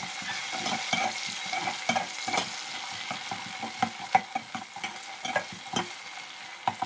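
Chopped onion and tomato sizzling in hot oil in a metal pot, stirred with a metal spoon that scrapes and knocks against the pot at irregular moments.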